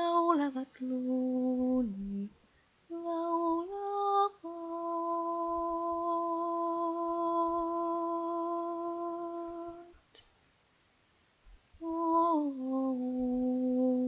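A woman humming a slow, wordless melody: short phrases that step up and down, one note held for about five seconds, a pause, then a phrase that falls.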